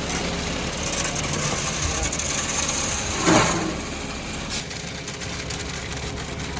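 Concrete mixer truck's engine running steadily while concrete is poured from the truck. There is a brief loud knock about three seconds in and a short click a second later.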